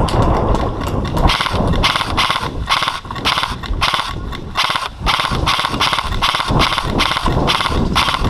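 Airsoft guns firing: a continual, irregular run of sharp pops, some in quick bursts, over a low rumble on the microphone.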